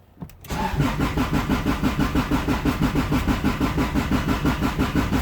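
Starter motor cranking a Honda Civic's four-cylinder engine in an even, rapid chug without it catching, starting about half a second in. The crew puts the no-start down to way too much fuel.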